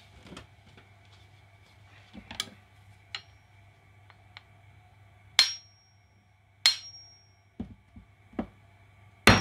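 Claw hammer striking the metal strike cap on the end of a Wiha screwdriver's handle: three sharp metallic taps, each with a short high ring, about halfway through, a second later and at the very end. Lighter knocks come in between.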